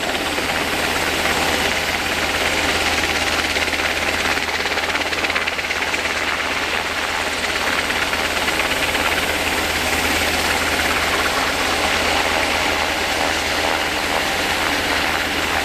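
JASDF UH-60J rescue helicopter hovering, its main rotor and twin turboshaft engines running steadily, with a deep rotor thrum under a turbine hiss.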